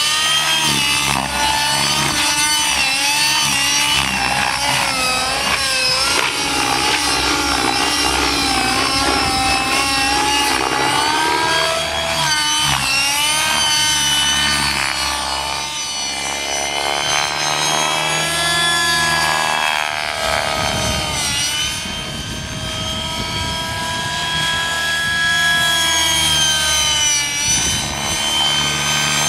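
Radio-controlled model helicopter flying aerobatics: its small engine and rotor whine continuously, the pitch swinging up and down as it manoeuvres, a little quieter around the middle.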